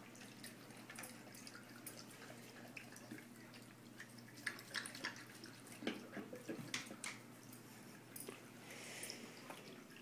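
Bubbling pet water fountain running: a low steady pump hum under constant dripping and trickling water. From about four and a half to seven seconds in, a dog laps water from it in a run of quick sharp splashy clicks.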